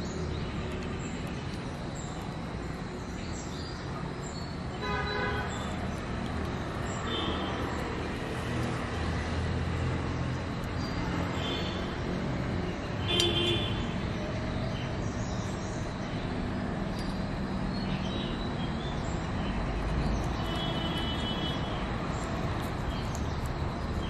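Steady road-traffic rumble, with a few short high-pitched calls scattered through it, the loudest about 13 seconds in.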